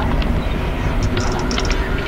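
Generated ambient noise soundscape: a dense, steady, train-like low rumble, with a quick cluster of small clicks from about a second in.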